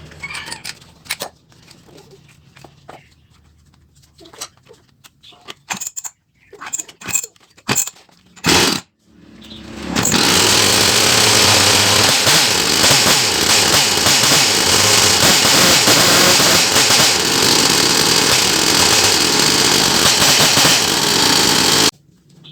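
A few sharp knocks, then the freshly restored Husqvarna 353's two-stroke chainsaw engine runs loudly and steadily for about twelve seconds before cutting off suddenly.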